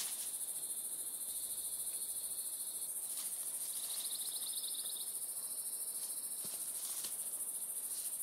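A steady, high-pitched chorus of insects buzzing with a fast, even pulse, joined by a second fainter buzz partway through. A few faint rustles come from flagging tape being tied to a post.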